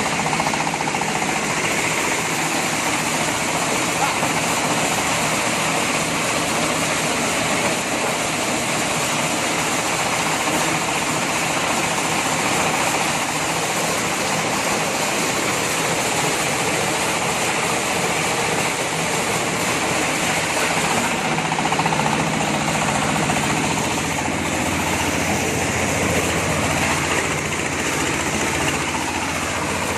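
Corn sheller for unhusked corn running on a test run: a loud, steady, dense mechanical noise of engine and shelling drum. The low engine hum grows stronger about twenty seconds in.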